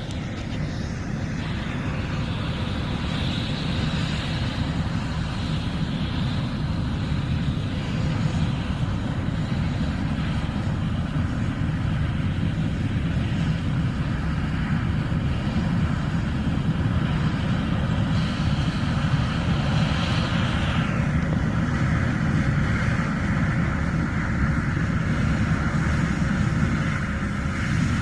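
John Deere S780 combine running steadily while harvesting corn: a continuous low machine rumble that swells slightly in the first few seconds.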